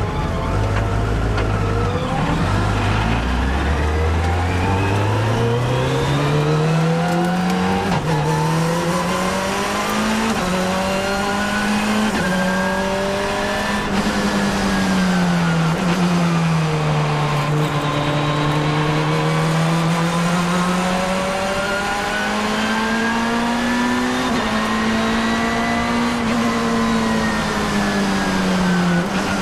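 Open-cockpit race car's engine heard from on board: a low note at first, then, from about three seconds in, the engine note climbs steadily for several seconds under acceleration, and after that it rises and falls with the throttle through the corners.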